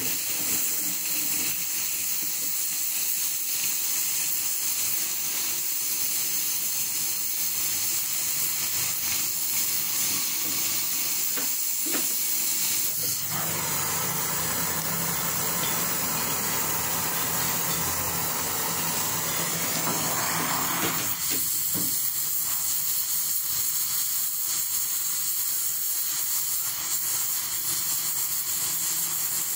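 Oxy-fuel cutting torch with a circle-cutting attachment, its flame hissing steadily while it cuts and heats thick steel plate. For several seconds in the middle a fuller, lower rushing sound joins the hiss.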